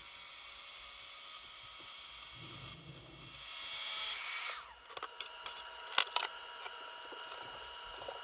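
Power tools running while a maple leg blank is spun by a drill and tapered with a track saw: a steady high whine and hiss. About four and a half seconds in, the tools stop with a quick falling whine. A few light clicks and knocks follow, the loudest about six seconds in.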